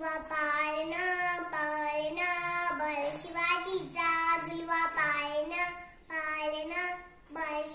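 A young girl singing a Marathi cradle song (pāḷaṇā) solo, in long held notes, with a short pause for breath about six seconds in.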